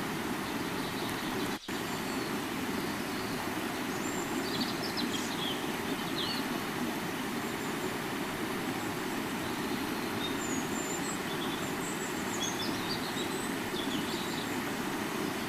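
River water flowing with a steady, even rush, with small birds chirping now and then. The sound drops out for an instant about one and a half seconds in.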